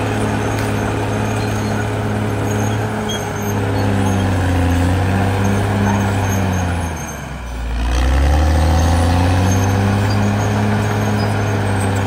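Caterpillar D6R XL bulldozer's diesel engine running hard at work. About seven seconds in the engine note sags in pitch and level, then climbs back up and holds steady.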